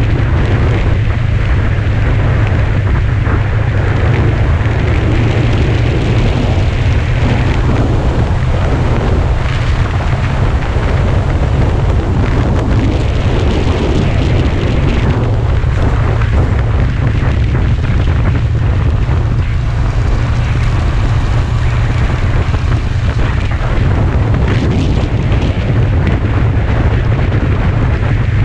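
Wind buffeting the microphone of a sport motorcycle under way at road speed: a steady, loud, deep rumble with the bike's running noise mixed in.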